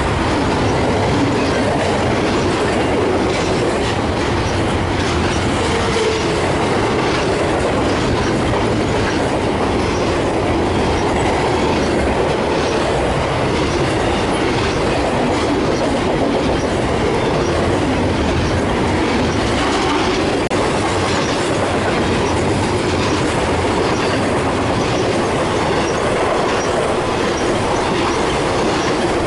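Double-stack intermodal freight cars rolling past: a loud, steady noise of steel wheels running on the rails.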